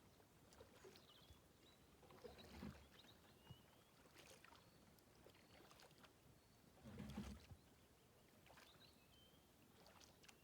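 Faint kayak paddle strokes in calm water: two soft swishes, about 2.5 and 7 seconds in, with quiet between them. Faint short high chirps are heard in the pauses.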